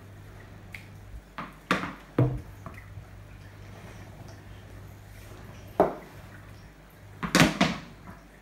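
Sharp knocks of a ball and a wooden cricket bat against a hard tiled floor: a few around two seconds in, one near six seconds, and a quick run of three near the end, over a faint steady low hum.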